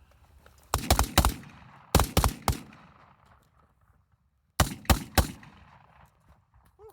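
Several AR-15 rifles firing together in a line drill: three quick volleys of shots, each a cluster of about four cracks, about a second in, at two seconds, and near five seconds, each ringing out briefly.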